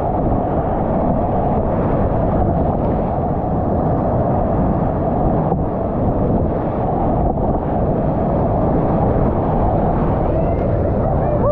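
Whitewater rapids rushing loudly around a river kayak paddling through them, with water splashing over the boat and onto the camera. The rush stays steady throughout.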